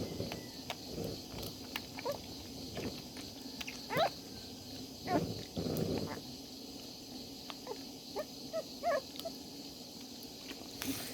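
Newborn puppies whimpering and squeaking in short, scattered high calls, some gliding up in pitch, with a few small clicks between.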